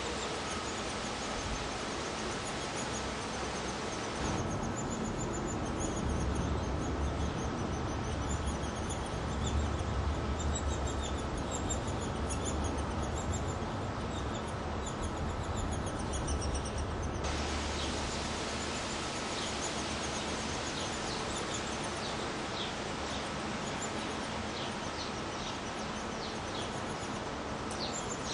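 Steady outdoor hiss with many short, high bird chirps, coming thicker in the second half. A low rumble runs through the middle stretch.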